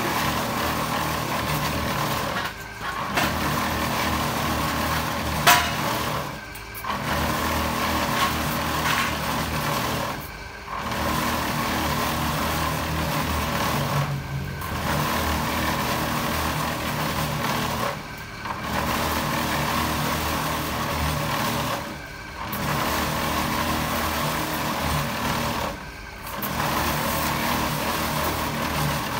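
Drum concrete mixer running steadily. Its hum dips briefly about every four seconds as the drum turns. A single sharp metallic clink comes about five seconds in.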